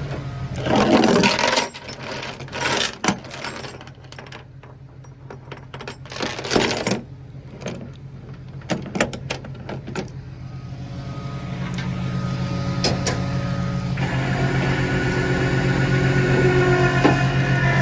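Metal clinks and clanks of towing chain and hooks being handled over the steady hum of a tow truck's engine, then a steadier mechanical drone builds in the second half.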